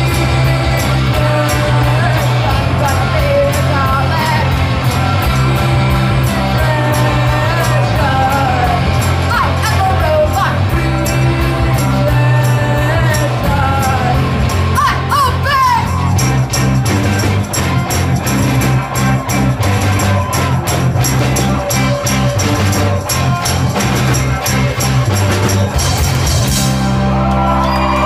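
Live rock band playing a song: singers over electric guitars, keyboard, bass and drums. The singing is clearest in the first half, with a steady drum beat throughout.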